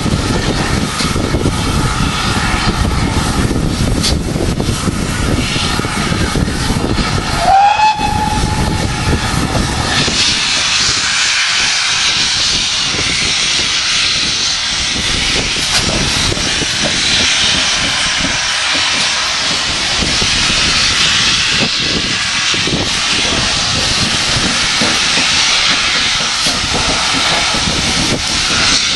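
Wind buffeting the microphone while a GWR steam locomotive moves through the yard, with one short steam-whistle note about eight seconds in. From about ten seconds a loud, steady hiss takes over: steam blowing off from a GWR engine's safety valves.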